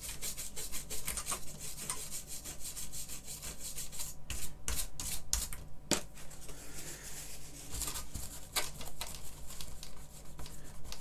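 A scalpel blade scraping hardened super glue off a keyboard circuit board in repeated short, irregular strokes.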